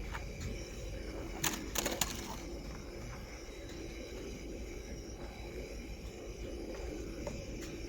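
Small gas canister stove burning steadily under a pan while vegetables cook, with three sharp clicks about one and a half to two seconds in.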